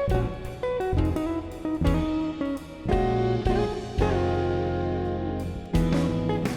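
Background music: a guitar-led instrumental with plucked and strummed chords over a steady drum beat.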